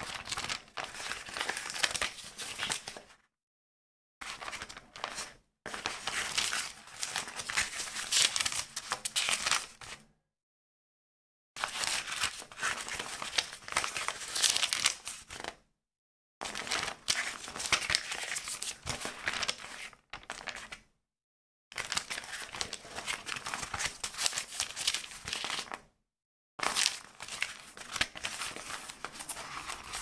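Paper pages of a small book being leafed and flicked through, a dense rustling and fluttering that comes in several separate takes of one to five seconds with short silent gaps between them.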